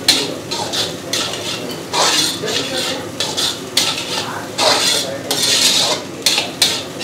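A metal spatula scraping and stirring semolina and onions around a large metal kadai in repeated, uneven strokes. This is the dry roasting of rava with onions for uppittu, stirred non-stop on medium flame.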